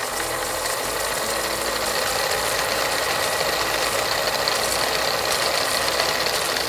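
A steady, fast-rattling suspense sound effect, held at an even level, that fills the pause while the quiz question waits for an answer.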